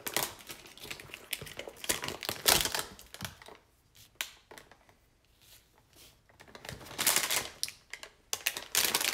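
Trading cards and their packaging being handled: a run of light clicks and taps, a quiet pause, then a burst of crinkling near the end.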